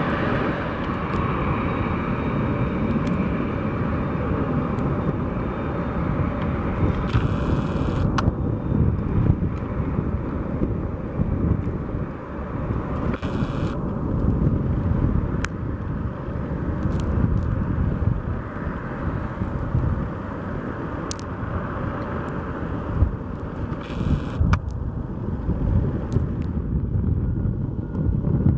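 Boeing 767-300 jet engines heard from outside as the airliner rolls out along a snowy runway after landing: a steady rumble with a few faint clicks.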